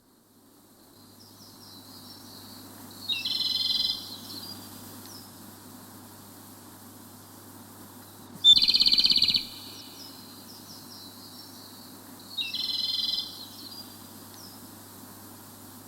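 A songbird singing three short, high-pitched phrases, each about a second long and four to five seconds apart; the middle one is the loudest. A faint steady outdoor background runs underneath.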